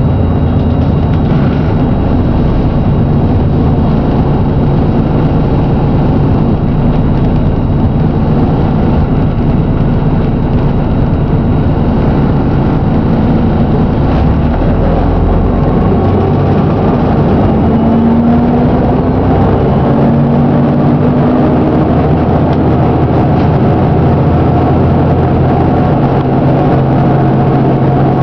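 Diesel engine of a Plaxton President double-decker bus running with a bad knock, the engine speed rising about two-thirds of the way through and then holding steady.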